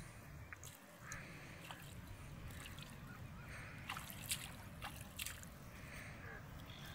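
Faint splashes and drips of shallow lake water as a released carp kicks away from the shore, with a few sharp splashes about four seconds in.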